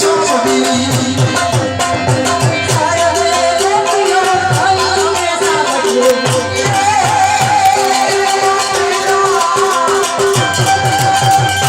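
Folk music with a fast, steady drum beat under a melody line.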